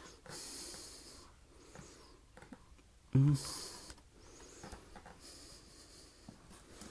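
Thick toast bread being torn into small pieces by hand: three short tearing rustles, a couple of seconds apart. A brief vocal sound comes about three seconds in.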